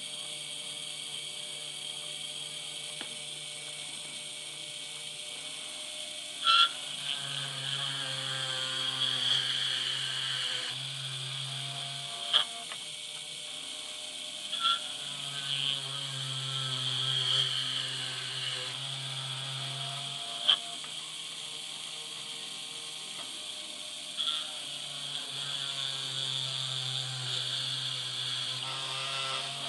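Drilling machine running with a steady whine as its bit cuts into a metal plate. A lower hum comes in for three stretches of about five seconds each as the work is moved under the bit. Sharp clicks mark the start and end of these stretches.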